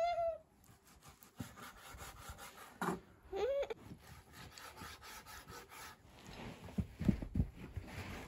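Knife cutting on a wooden cutting board in quick repeated strokes, with a few heavier taps about seven seconds in. A short animal call that rises then falls sounds at the start and again about three and a half seconds in.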